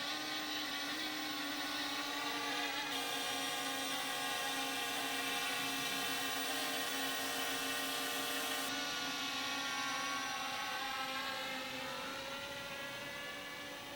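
Quadcopter drone's propellers and motors buzzing in a steady high-pitched whine, the pitch wavering slightly, growing fainter over the last few seconds as the drone moves away.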